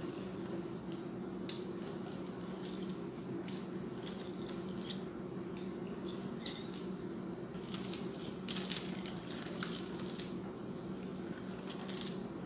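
A pizza cutter's wheel rolling and scraping through thin dough on parchment paper over a stone countertop, giving scattered light clicks and scrapes that come more thickly about two-thirds of the way through. A steady low hum runs underneath.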